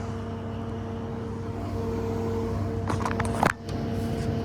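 Steady motor hum from running rooftop HVAC equipment, with a short sharp sound about three seconds in.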